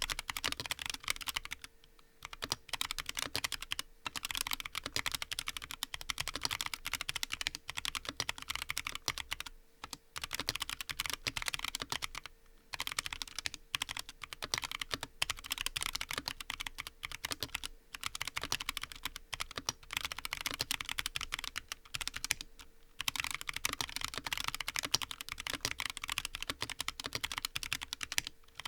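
Fast, continuous typing on a Frusta Fundamental custom mechanical keyboard, top-mounted with a brass plate and lubed Huano White Blue switches: a dense run of keystroke clacks broken by a few short pauses.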